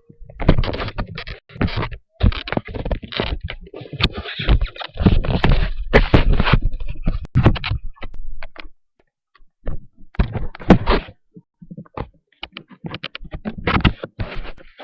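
Irregular thumps and scraping close to the microphone, coming in clusters with short pauses between.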